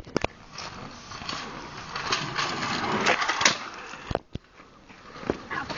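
Small hard kick-scooter wheels rolling over rough asphalt, a steady rushing rattle that swells and fades. The handheld phone knocks at the start.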